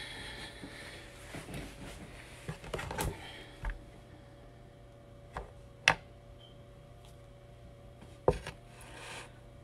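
A few sharp knocks and handling noises in a small room, the loudest two about six and eight seconds in, over a faint steady hum.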